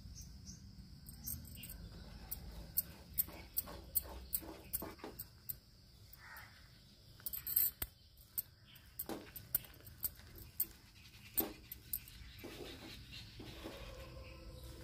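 Wooden spatula stirring grated coconut into a thick milk-and-sugar mixture in a nonstick pan, with soft scraping and a string of sharp, irregular taps and clicks of the spatula against the pan.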